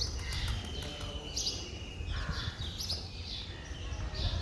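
Birds chirping, with short high calls repeating every half second or so over a low steady rumble.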